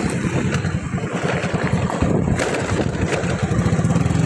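Small motorcycle engine running while the bike is ridden over a rough, cracked road, its low note uneven and choppy.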